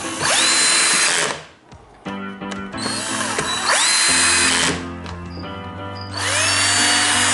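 Cordless drill/driver running three times, each run spinning up in pitch and then holding steady as it drives a screw into the cage panels.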